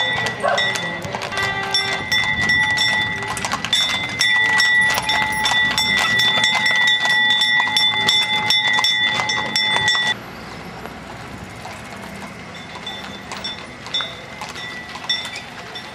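Horses' hooves clip-clopping on the road as horse-drawn carriages pass, with a steady high ringing over the many sharp clicks. About ten seconds in the sound drops suddenly to a fainter level.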